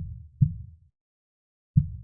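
Slow heartbeat: a deep lub-dub double thump at the start, then the first thump of the next beat just before the end, with silence between beats, a little over thirty beats a minute.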